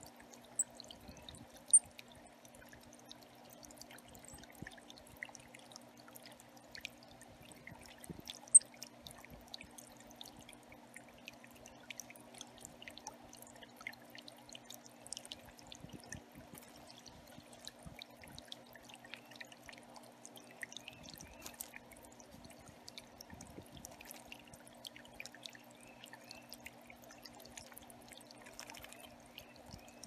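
Water trickling over rocks into a shallow pebble bird pond, with small splashes from tufted titmice bathing, over a steady low hum. Two sharp high ticks stand out, about two and eight and a half seconds in.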